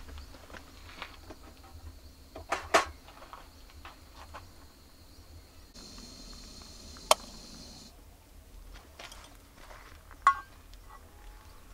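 Camp cookware and utensils being handled: scattered light clicks and knocks with three sharper clacks, and a steady hiss lasting about two seconds midway through.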